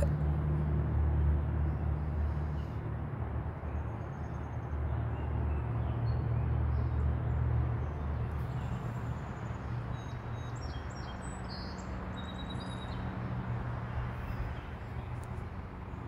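Backyard field recording: a steady low rumble runs throughout, and faint high notes of a song sparrow singing come through in the second half.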